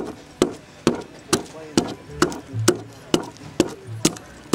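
A short-handled chopping tool striking cypress wood, carving out a dugout canoe: a steady rhythm of sharp chops, about two a second, ten or so in all.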